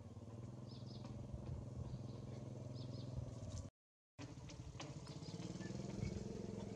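A small engine running steadily with a low hum, with a few short faint high chirps over it. The sound cuts out completely for about half a second midway.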